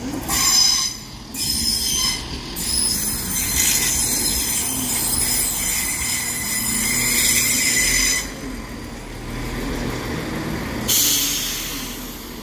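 Train wheels squealing on the rails: a loud, high-pitched metallic screech of several tones over a low rumble, lasting most of the first eight seconds and returning briefly near the end.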